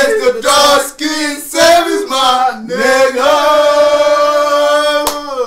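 Several men's voices singing together, a short chant whose pitch moves for the first few seconds and then settles into one long held note that stops with a sharp click near the end.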